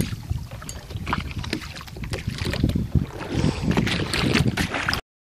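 Wind buffeting the microphone over water sloshing and splashing against the side of a small boat, with scattered knocks. The sound cuts off suddenly near the end.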